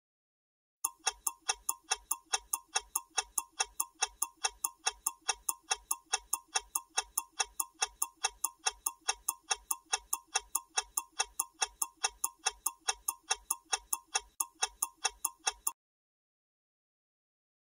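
Clock-ticking sound effect of a quiz countdown timer: even, rapid ticks, about four a second. It starts about a second in and stops when the countdown reaches zero.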